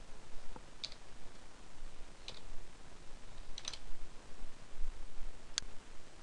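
Isolated clicks of a computer mouse and keyboard, four of them about a second and a half apart, the third a quick double click.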